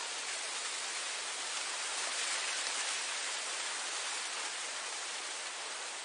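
Wind blowing through grass: a steady, airy hiss that swells slightly a couple of seconds in and then eases.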